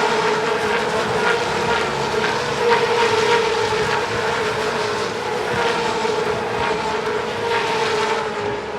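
Racing car engine running at high, fairly steady revs, giving one sustained high-pitched note.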